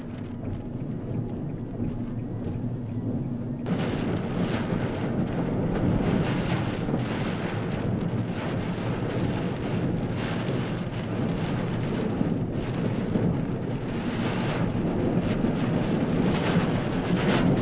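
Strong typhoon wind and driving rain buffeting the microphone: a dense, rumbling noise that grows louder and brighter about four seconds in.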